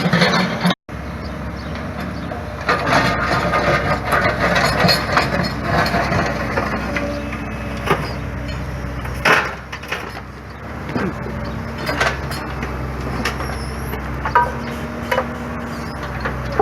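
Heavy plant diesel engine running steadily while hard material knocks and clatters at irregular intervals. The sound drops out briefly just under a second in.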